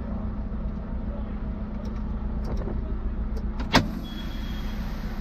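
Vehicle engine running steadily with a low drone, and one sharp click or knock about two-thirds of the way through.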